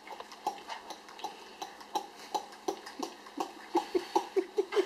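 Plunger-style hand food chopper pumped up and down on cilantro: a rapid run of short clacking strokes that quicken to about four or five a second near the end.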